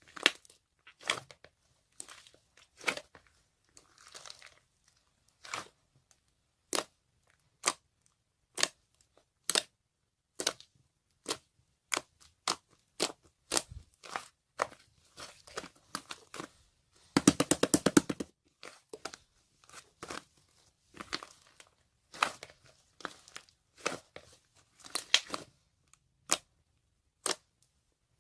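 Slime being pressed and stretched by hand, giving sharp separate pops and crackles at irregular intervals, with a fast run of clicks about two-thirds of the way through.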